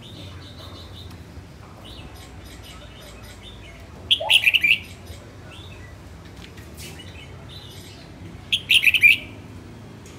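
Red-whiskered bulbul singing: two short, loud phrases of several quick notes, one about four seconds in and another near nine seconds.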